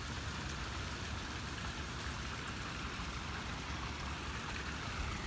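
Steady splashing of a large public fountain's falling water, with a low rumble underneath.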